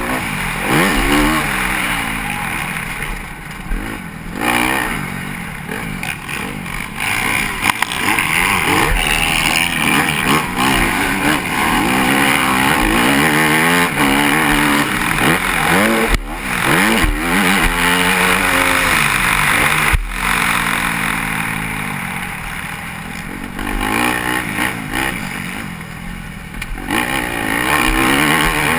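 A motocross dirt bike's engine, heard close up from the rider's helmet, revving up and down again and again as it is ridden hard around the track, with the rush of wind over the microphone.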